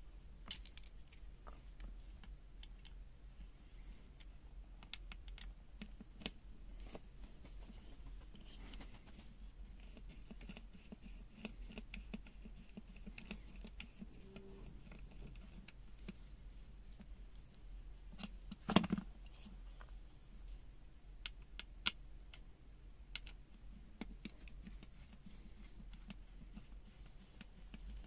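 Faint scattered clicks and scratches of hands working open the plastic case of a UNI-T UT123D multimeter, with one louder knock about two-thirds of the way through.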